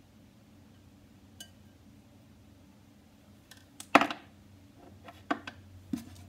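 Low room tone, then about four seconds in a sharp clink followed by a few lighter knocks and clicks, as small items such as a food-dye bottle and a utensil are set down and handled against a glass mixing bowl and countertop.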